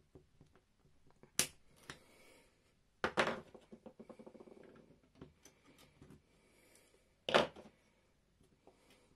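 Small clicks and snaps of plastic as bits of sleeper are cut and picked away from model railway track, with three louder snaps, about a second and a half in, at three seconds and near the end, and a short rough scraping after the second.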